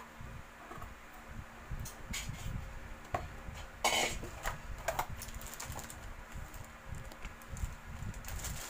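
Handling noises: scattered light clicks and knocks, with one louder sharp burst about four seconds in.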